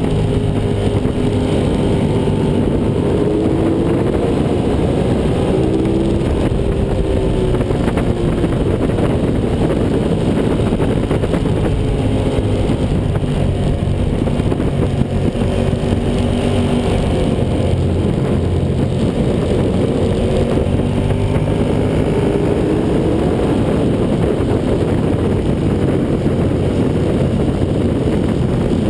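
Sport motorcycle engine at track speed, its pitch rising and falling several times as it accelerates and backs off through the corners, under a steady rush of wind on the bike-mounted microphone.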